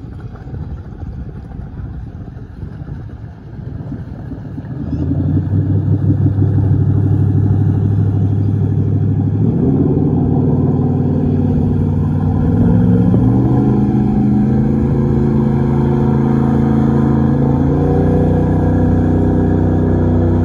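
Outlaw jet boat's engine running: a low rumble at first, then about five seconds in it opens up and gets much louder, rising in pitch in several steps as the boat speeds away across the water.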